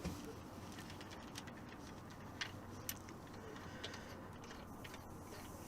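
Faint, scattered light metallic clicks and clinks of small engine parts being handled, with two sharper clicks about two and a half and three seconds in.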